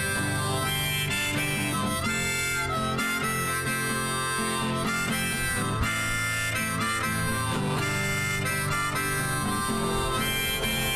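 Background song in an instrumental break between verses: harmonica playing over a steady instrumental backing.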